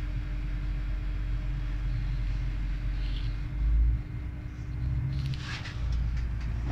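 Cabin sound of a GWR Class 800 bi-mode train running on its underfloor diesel engines: a steady low rumble and hum of engines and wheels. There is a brief louder low bump about halfway through.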